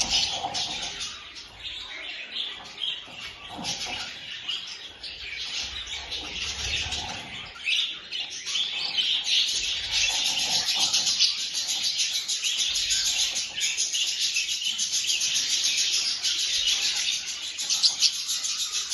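A chorus of many small birds chirping rapidly and continuously, growing busier about halfway through.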